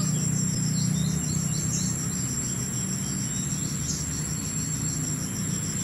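Insects chirping in a steady high trill with quick regular pulses, over a steady low hum.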